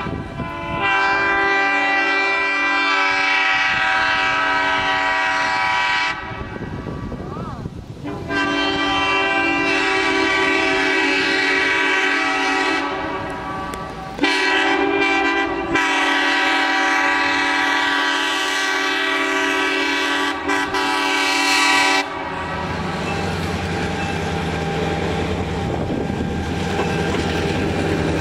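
Western Maryland EMD F7 diesel locomotive No. 236 sounding its horn in four blasts: two long, a short one, then a long one. This is the pattern of a grade-crossing signal. After the horn stops, about three-quarters of the way in, the locomotive's diesel engine is heard running steadily as it draws near.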